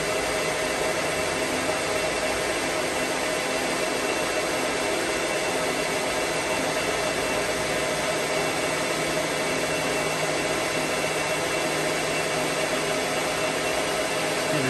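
Metal lathe running steadily under power feed, a carbide-insert tool taking a facing cut across the parted-off end of a small turned part; a constant machine hum with several steady tones running through it.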